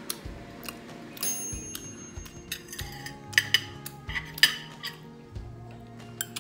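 Metal chopsticks clinking and tapping against a plate and bowl, several sharp clinks with a short ring, the loudest about halfway through, over steady background music.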